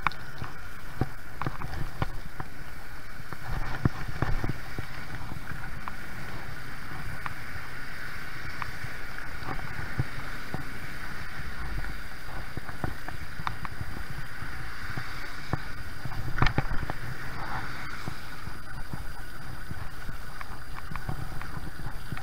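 Zeda 80 two-stroke bicycle engine with a Thunder muffler running steadily under way, mixed with wind rush. A few sharp knocks come about four seconds in and again about two-thirds of the way through.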